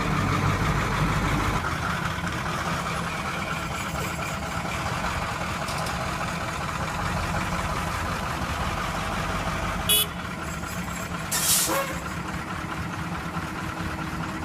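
Heavy machine's diesel engine running steadily as it backs up. About ten seconds in there is a sharp short burst, then a brief hiss about a second later.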